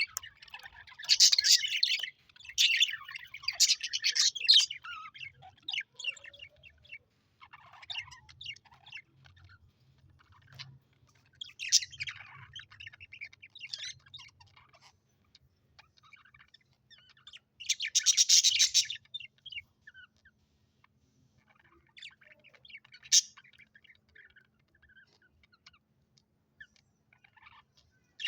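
Budgerigars chirping in irregular bursts: busy in the first few seconds, thinner and scattered after, with a loud burst of chirping about eighteen seconds in and a single sharp chirp a few seconds later.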